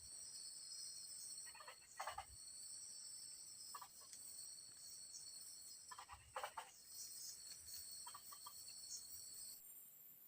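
Faint, steady high-pitched chorus of forest insects that changes its pitch band about nine and a half seconds in. A few short rustles and clicks come in between, about every two seconds.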